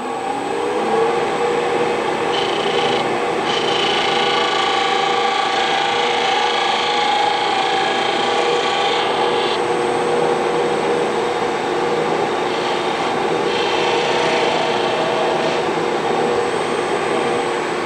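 Wood lathe running while a turning tool cuts a spinning burl wood handle blank: a steady scraping hiss of the cut over the lathe's hum, with a brighter, harsher cut from about two seconds in to about ten.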